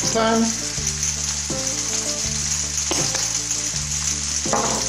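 Aubergine slices and cherry tomatoes sizzling in hot olive oil in a frying pan, a steady high hiss.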